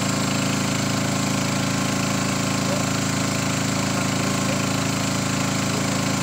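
Small boat's engine running steadily under way, an even drone with a fast, regular firing pulse.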